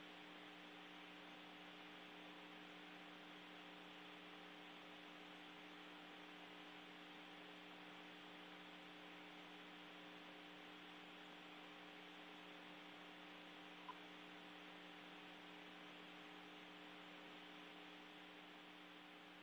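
Near silence: a faint steady hum with a low hiss, and one brief click about fourteen seconds in.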